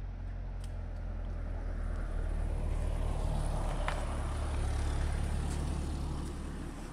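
A car driving past close by, the rumble of its engine and tyres swelling to a peak partway through and then easing off, with one sharp tick as it passes.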